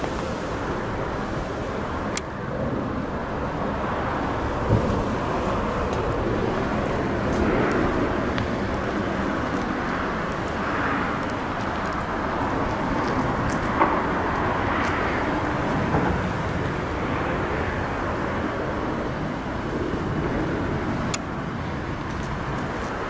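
Steady outdoor background noise of road traffic, swelling now and then, with a few sharp small clicks.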